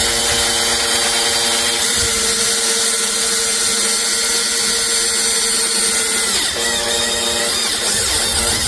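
Makita electric drill running a step drill bit into painted sheet-metal body panel: a steady motor whine that dips in pitch briefly about six and a half seconds in, then picks back up.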